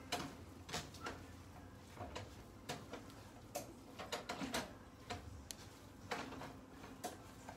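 A spoon stirring a thick stuffing in a metal pan, with irregular faint clicks and scrapes of the spoon against the pan.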